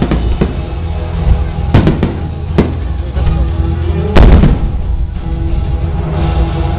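Fireworks shells bursting, about six sharp bangs, the loudest about four seconds in, over loud music.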